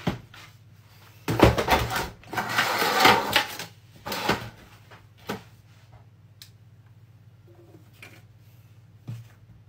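Clear plastic food storage tub handled on a kitchen worktop: a run of loud plastic scraping and clattering as the lid is pulled off, a shorter clatter a moment later, then a few light knocks.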